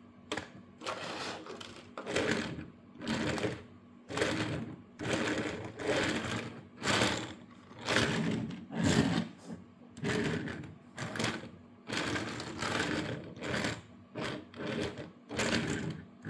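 Plastic wheels of a Robocar Poli Amber toy ambulance rolling on a tabletop as it is pushed back and forth by hand, about once a second. It is an unpowered push-along toy with no motor.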